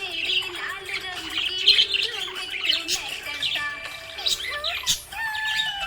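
Budgerigars chirping and warbling, many quick overlapping chirps and trills in a continuous chatter.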